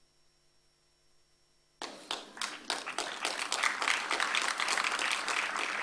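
Faint hum, then audience applause breaks out suddenly about two seconds in and grows louder.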